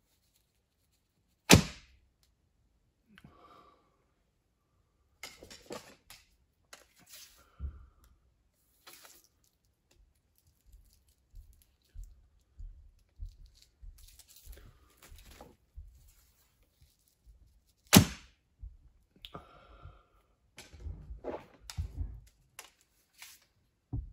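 Two shots from a traditional recurve bow, about sixteen seconds apart, each a single sharp thunk as the string is released and the arrow flies. Between the shots come quieter scattered rustles and clicks of arrows being handled and nocked.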